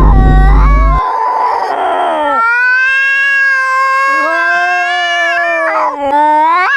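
Tabby cat meowing in long, drawn-out yowls, held steady for a few seconds and rising in pitch near the end. A loud low rumble runs under the first second.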